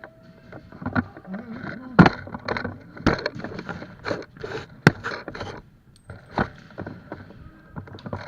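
Irregular knocks and clicks with some scraping, the sharpest about two seconds and five seconds in, and a brief voice.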